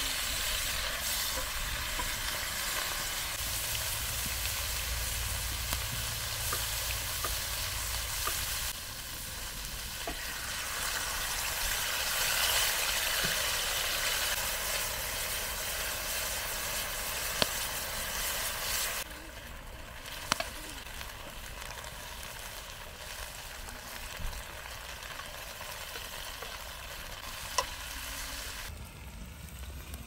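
Tri-tip steaks sizzling in a cast-iron skillet over a campfire: a steady frying hiss, with a few sharp clicks now and then in the second half.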